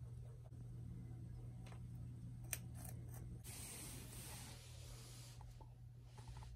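A few faint sharp clicks of a pet rabbit nibbling at its food over a low hum. Then, about halfway through, nearly two seconds of rustling hiss close to the microphone as the phone brushes against the rabbit's fur.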